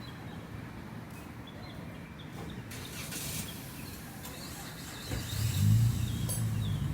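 A motor vehicle going by, over a steady low rumble. Its engine hum swells about five seconds in and is loudest near six seconds.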